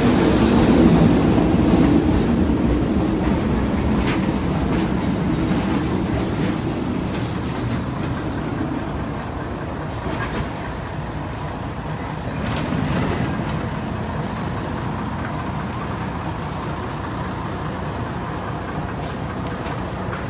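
Philippine National Railways passenger train's coaches rolling past alongside the platform: a steady rumble of wheels on rail, loudest at first and slowly easing off, with a brief high squeal at the start and a few sharp clacks from the wheels.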